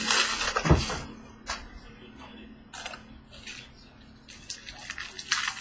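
Hands handling a trading-card box and its packaging. There is a burst of rustling with a thump about a second in, then scattered light clicks and taps.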